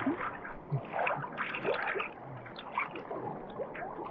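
Sea water splashing and sloshing irregularly around someone wading out into deeper water.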